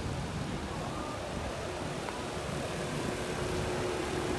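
Steady outdoor street noise: a low rumble, with a faint steady hum joining after about a second and a half.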